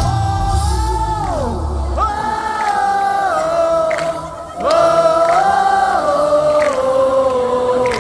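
Live gospel worship music: a voice holds long, wordless sustained notes that slide up and down between pitches, over the band. The low bass drops out about a second and a half in, and the music dips briefly about four and a half seconds in before the voice comes back strongly.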